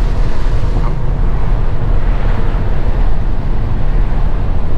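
Inside a moving truck's cab with the window down: steady low engine and road rumble, with wind rushing in through the open window.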